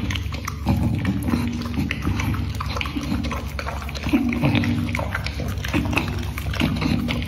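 A bully-breed dog licking and lapping food scraps off a metal plate: a steady run of quick wet smacks and clicks, with low humming tones coming and going between them.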